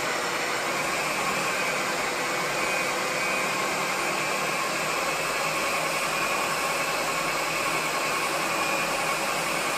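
Ninja blender's motor running steadily on low, mixing cookie dough while melted butter is drizzled in through the lid.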